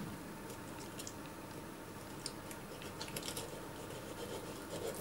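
Knife cutting along the back of a scaled bream on a wooden board: faint, scattered scratchy clicks and crunches as the blade works through skin, scales and fin bones.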